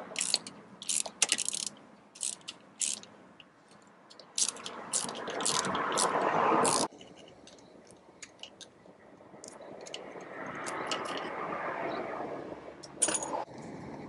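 Hand ratchet with a 1/4-inch socket clicking in irregular bursts as it works the pinion shaft lock screw inside a Dana 35 differential carrier, with metal clinks of the tool against the gears. There is a loud clink near the end. A steady background rush swells and fades twice, the first cutting off suddenly about seven seconds in.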